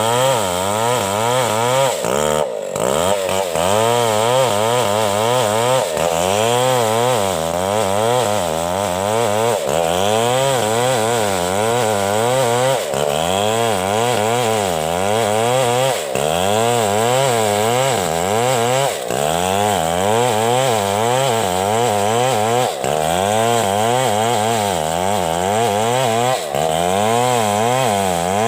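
Stihl 070 two-stroke chainsaw running hard while cutting a fallen coconut palm trunk. The engine's pitch keeps rising and falling as the chain bogs under load and recovers, with a few brief drops in loudness.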